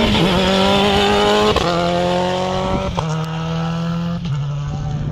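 Subaru Impreza rally car's turbocharged flat-four engine accelerating hard. It climbs in pitch through three quick upshifts, each about a second and a half apart.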